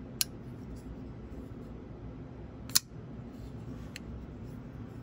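Sharp clicks from a Hinderer Firetac folding knife as its blade is opened and closed by the thumb disc. There is a crisp snap near the start, a louder one just before the middle, and a fainter one near the end.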